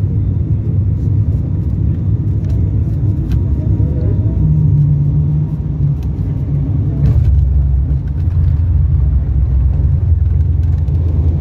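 Cabin noise inside a turboprop airliner on its landing roll: a steady low drone of engines and propellers with runway rumble, getting louder about seven seconds in.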